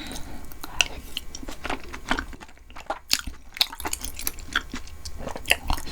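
Close-miked chewing of a mouthful of beef-tripe tteokbokki, with irregular wet clicks and squelches from the mouth.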